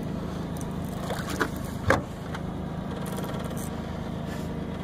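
Boat motor running steadily, a low even drone, with a few light clicks and one sharp knock about two seconds in.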